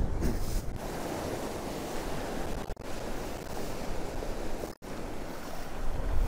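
Sea surf washing onto a beach, a steady rushing noise with some wind on the microphone. It cuts out for a split second twice, near the middle and again about a second later.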